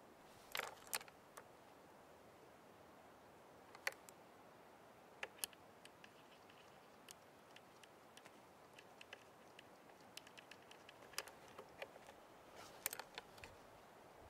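Faint, scattered clicks and taps of oil painting: a brush working paint on a wooden pochade palette and touching the canvas on the easel, over a low steady hiss.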